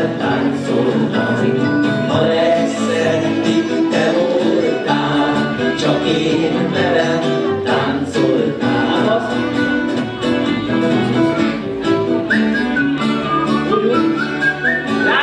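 Hungarian folk band playing a lively dance tune live: fiddle, strummed acoustic guitar, mandolin and double bass, with singing over a steady strummed beat.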